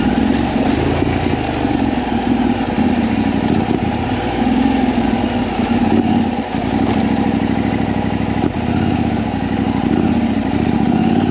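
KTM 890 Adventure R's parallel-twin engine running at low revs as the bike is ridden slowly on dirt, the engine note rising and falling with the throttle and dipping briefly about six and a half seconds in.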